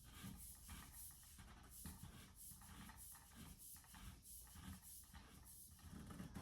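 Faint, irregular scratching and light knocks of hand assembly work on a bar stool, several small strokes a second.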